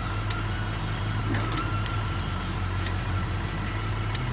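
A steady low engine hum with no change in pace, and a faint thin high tone running above it.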